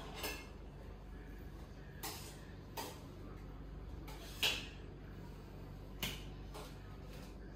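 About five faint knocks and clicks spread over several seconds, the one a little past the middle the loudest, over a low steady hum.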